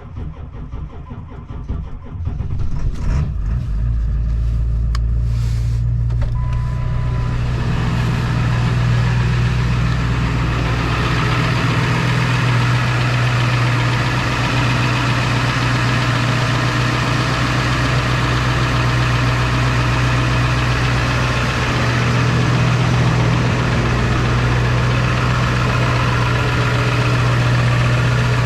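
A 2003 Ford F-350's 7.3-litre turbo-diesel engine starts about two seconds in after a few clicks, then idles steadily. A short steady beep sounds about six seconds in.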